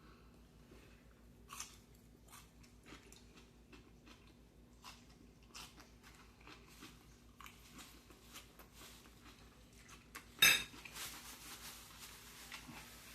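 A man chewing and crunching fried chicken and salad close to the microphone: a run of short, faint crunches and mouth sounds, with one much louder sharp sound about ten and a half seconds in.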